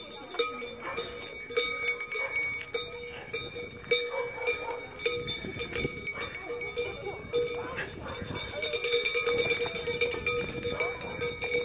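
Several metal bells ringing and jangling continuously, in a steady mix of tones, with footsteps on the road and a few voices in the background.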